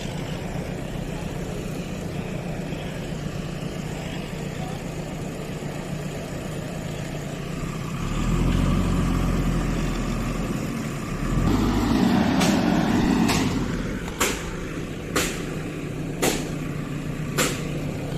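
Backhoe loader's diesel engine running steadily and revving up twice under load. Six sharp knocks come about a second apart near the end.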